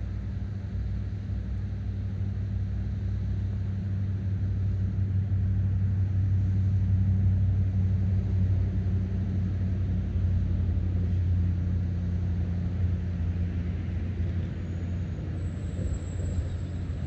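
Low, steady rumble of road traffic with an engine hum, swelling about a third of the way in and easing off again, as from vehicles crossing a road bridge.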